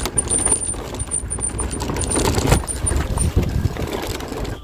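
Crunching of loose stones and gravel underfoot on a rocky dirt track: a dense run of small clicks and crackles over a low rumble.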